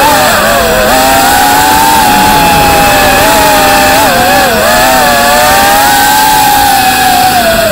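Axis Flying Manta 3.5-inch FPV quadcopter's motors and propellers whining in flight, several close tones wavering up and down with the throttle and dipping in pitch about halfway through and again at the end, heard loud through the drone's onboard camera microphone.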